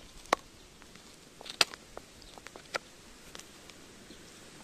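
Shiba Inu gnawing an Ezo sika deer bone, its teeth cracking and scraping on the bone in a few sharp clicks, about four, the loudest about a second and a half in.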